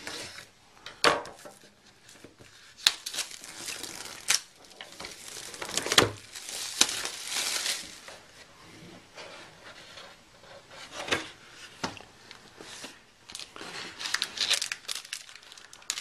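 Plastic shrink-wrap being cut and torn off a cardboard box, crinkling and rustling in irregular stretches, with scattered sharp taps and clicks from handling the box and its contents. The crinkling is busiest in the middle.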